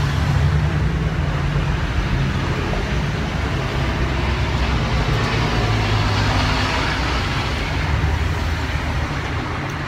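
Road traffic noise: a steady low engine rumble from vehicles passing close by, over a continuous road hiss.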